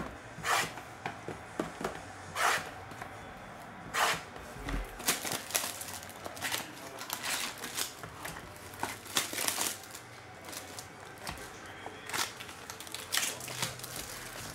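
Plastic wrap and cardboard packaging of trading-card boxes crinkling, tearing and tapping as they are handled and opened, in irregular sharp crackles and snaps.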